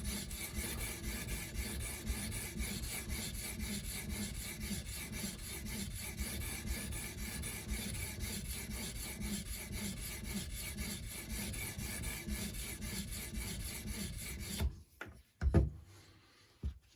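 A 300-grit diamond matrix sharpening stone on an Edge Pro sharpener, rasped back and forth along the edge of a 154CM steel knife in quick, even strokes with light pressure. The strokes stop near the end, followed by two short knocks.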